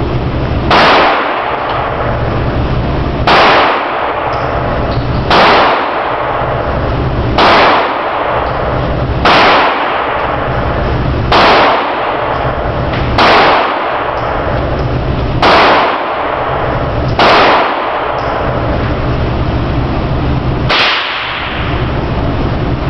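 Ten gunshots fired one at a time, roughly every two seconds with a longer gap before the last, each ringing on briefly in the room, over a steady low hum.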